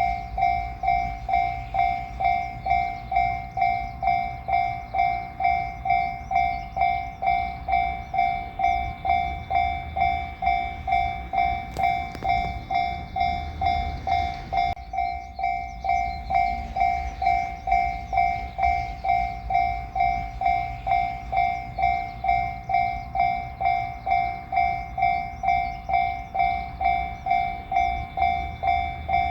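Japanese level-crossing warning bell ringing steadily, an electronic clang repeating about twice a second: the signal that a train is approaching and the barriers are down. A low rumble sits underneath.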